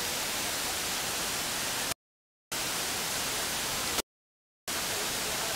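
Waterfall cascades in heavy flow, a steady rushing hiss, cut off twice by brief dead-silent dropouts in the audio.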